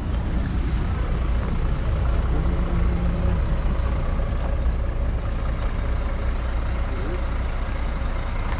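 Street traffic noise: a steady low rumble of vehicle engines, with the deep drone of a heavy vehicle such as a bus or truck.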